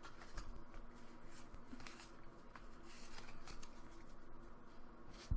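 Pokémon trading cards being handled and slid against one another: faint rustling with light clicks, and a sharp tap near the end.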